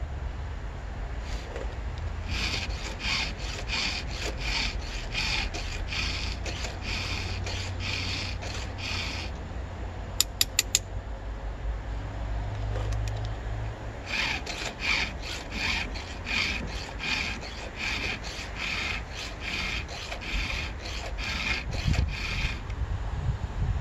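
Hand file rasping across the cutters of a chainsaw ripping chain at about two strokes a second. The strokes come in two runs, with a pause in the middle where a few sharp clicks sound.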